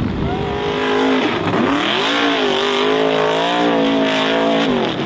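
Hill-climb buggy's engine revving hard on a steep dirt climb, its pitch rising and falling, then cutting off abruptly shortly before the end as the buggy rolls over.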